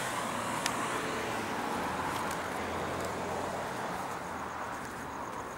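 Road traffic: a car passes close by, and its tyre and engine noise fades away slowly over a few seconds.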